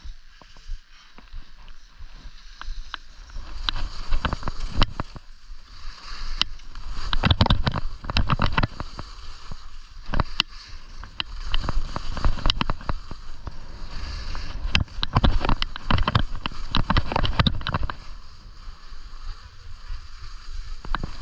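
Skis scraping and carving over firm, crunchy snow, heard from a camera on the moving skier, with a rush of air noise on the microphone. It grows louder and choppier through the middle turns and eases off near the end.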